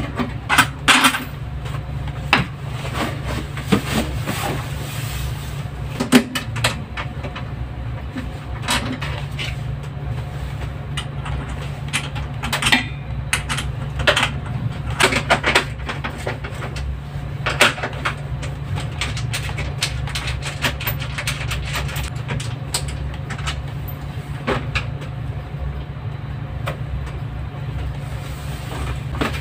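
Steady low machinery hum, with irregular metallic clicks, taps and knocks as hand tools and metal parts of a refrigeration evaporator unit are handled during repair work.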